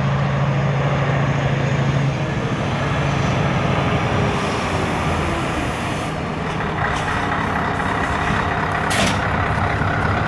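Heavy diesel truck engine running close by, a steady low hum, with a high steady whine joining near the middle and a short hiss about nine seconds in.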